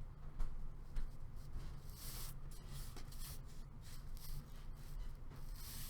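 Trading cards and their packaging being handled: short rustling and sliding brushes, two of them longer, about two seconds in and near the end, over a steady low hum.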